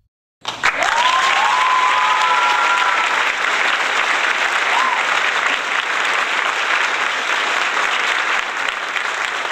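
Crowd applauding: dense clapping that starts suddenly about half a second in and keeps on steadily, with a few rising whistles in the first few seconds.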